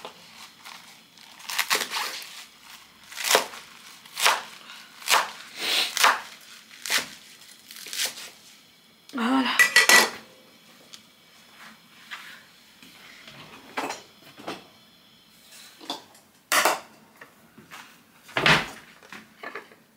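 Kitchen knife cutting vegetables on a cutting board: irregular sharp knocks of the blade against the board, with a noisier stretch of about a second midway and a heavier knock near the end.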